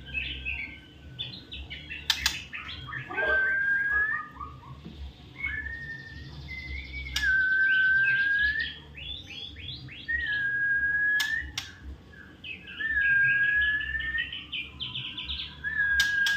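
White-rumped shama (murai batu) singing: long held whistles, each turning up at the end, alternate with quick bursts of chattering notes. A few sharp clicks are heard along the way.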